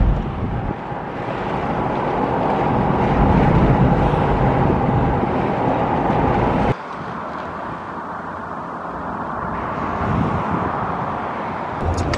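Steady vehicle noise heard inside an SUV's cabin, a mix of low rumble and hiss. A little past halfway it drops abruptly to a quieter steady background.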